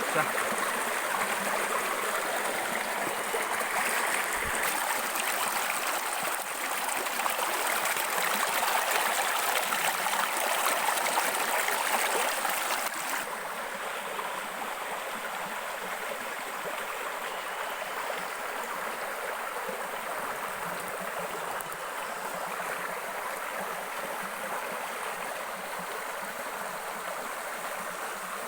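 Stream water running over rocks, a steady rush with no let-up, a little louder for the first thirteen seconds or so and then settling slightly quieter.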